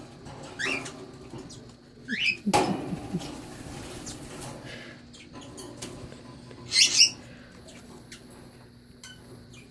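Baby parrots, hand-fed cockatiel and scarlet-chested parakeet chicks, give a few short scattered chirps. The loudest is a sharp high call about seven seconds in.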